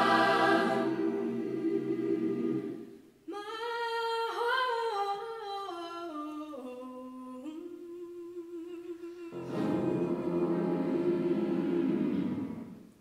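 Youth choir singing a held chord that cuts off about three seconds in. After a brief pause a single female solo voice sings a slow, falling phrase. The full choir comes back in about nine seconds in on a final sustained chord that fades out near the end.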